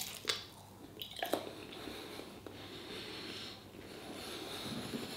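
A person biting into a saveloy sausage, with a few short clicks in the first second and a half, then chewing it with the mouth closed.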